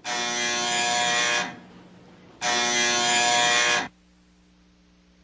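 Electric doorbell buzzer pressed twice: two long buzzes of about a second and a half each, with a short pause between them.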